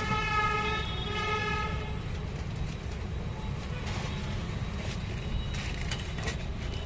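Street traffic rumbling steadily, with a vehicle horn honking in two short blasts during the first two seconds. A few light clicks come near the end.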